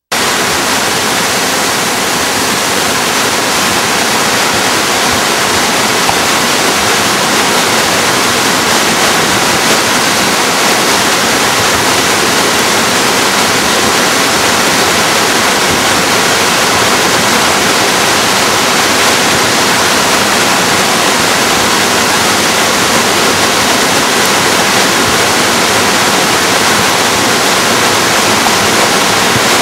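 The Nisqually River in flood: swollen, fast water rushing with a loud, steady roar.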